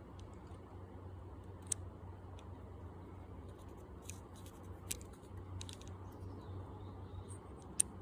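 Scattered small clicks from a drill press chuck's jaws and sleeve being worked by hand during reassembly, about five sharp ticks with two louder ones about two seconds in and near the end, over a low steady hum.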